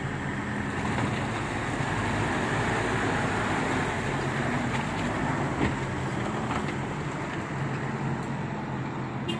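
Toyota Hilux pickup engines running steadily under load as one truck tows the other out of deep mud on a tow strap. The engine hum swells about a second in and holds.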